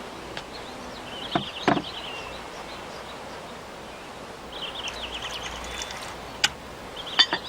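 Outdoor ambience with a small bird chirping in short, rapid trills three times, over a steady low hiss. A few sharp clicks or taps stand out as the loudest sounds, two in the first two seconds and two more near the end.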